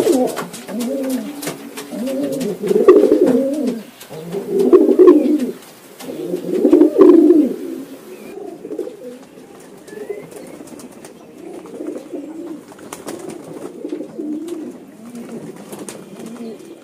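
Domestic pigeons cooing, several loud coos in the first half and softer overlapping coos after, with scattered splashes and wing flutters from birds bathing in a water basin.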